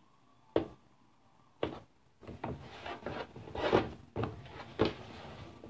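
Hands squeezing and rubbing a soft slow-rising foam squishy toy shaped like a kitty hamburger. There are two sharp knocks near the start, then a run of rustling, scraping rubbing noises.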